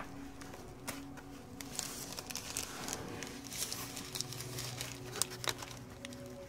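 Clear plastic bag crinkling and rustling as it is handled and pulled out of a fabric zippered carrying case, with scattered small handling clicks and a sharp click right at the start.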